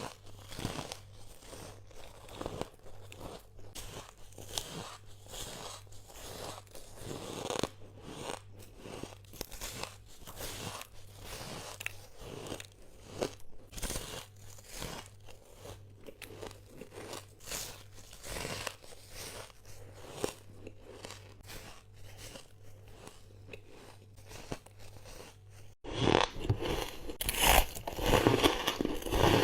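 Squeaky ice being bitten close to the microphone: a quick run of sharp crunching bites. About 26 s in it switches abruptly to a louder take of crunching bites.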